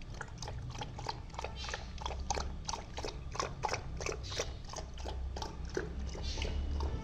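A puppy lapping water from a plastic bucket: a steady run of quick wet laps, about three to four a second.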